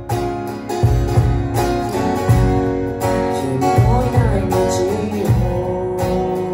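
Acoustic guitar strumming chords over a steady cajon beat. A voice sings a short phrase around the middle.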